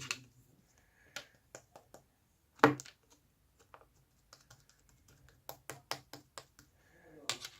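Pearl slime being squeezed and pressed by hand, giving irregular sharp clicks and pops. There is one loud pop early on and a quick run of clicks past the middle.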